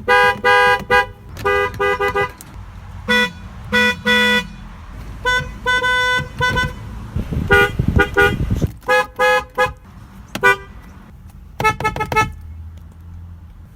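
Vehicle horns honking in a string of short blasts and toots, over a dozen in clusters, most of them two-tone. About eight seconds in, a louder low rumble swells briefly under the honks.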